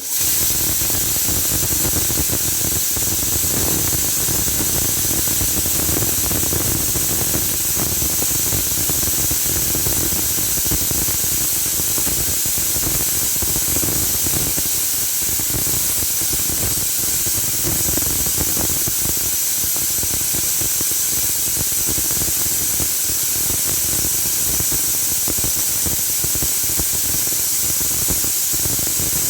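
Pressure cooker venting steam: a loud, steady, high hiss that starts suddenly, with a lower rumble beneath it.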